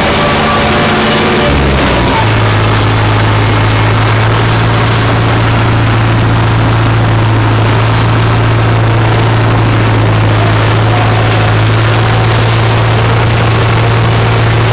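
Old tractor engine running steadily, heard close up from the driver's seat. Its note shifts about two seconds in, then holds steady.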